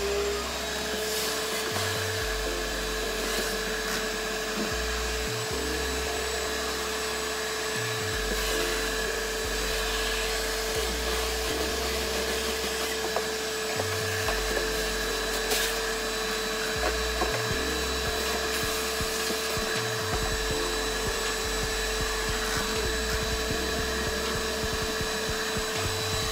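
Vacuum cleaner running steadily with a constant motor whine and rushing air, its hose nozzle sucking dust out of a van's blower motor housing, with occasional faint knocks and scrapes of the nozzle against the housing.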